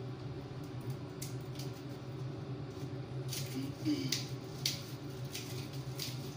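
Kitchen background: a steady low machine hum with scattered light clicks and knocks of kitchen work, most of them in the middle.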